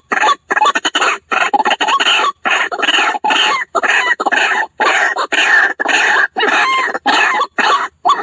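White-breasted waterhen (ruak-ruak) lure call: a loud run of harsh, croaking calls in quick bursts, several a second, with only brief gaps between them.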